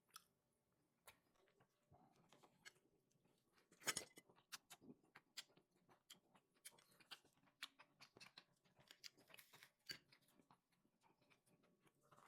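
Near silence with faint, scattered clicks and smacks of someone chewing food, one slightly louder click about four seconds in.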